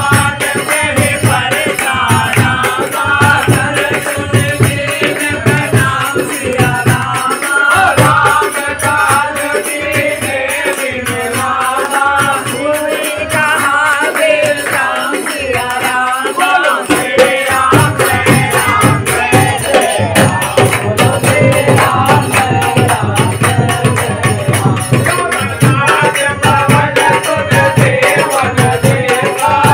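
A group of men singing a devotional song in unison from songbooks, with a hand drum, clapping and rattling hand percussion keeping a fast, even beat.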